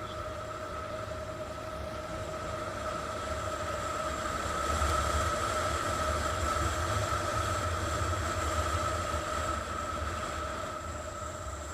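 A 50 cc Chinese scooter's engine and variator running steadily under way, a constant whine over a low rumble, slightly louder in the middle as it picks up a little speed.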